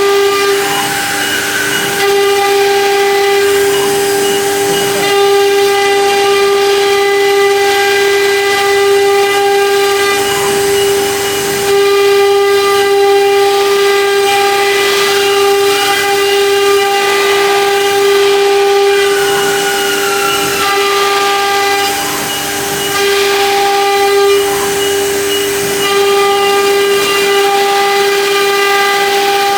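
Four-spindle CNC router's spindles running at high speed while 3D engraving: a loud, steady high whine with overtones over the hiss of the cutting, dipping briefly now and then.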